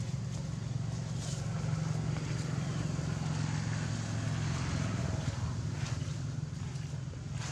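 A steady low engine hum from a motor vehicle running, with a few faint clicks.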